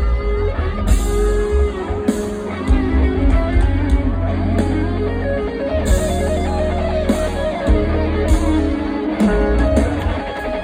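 Band music led by guitar over a strong, steady bass, with no singing.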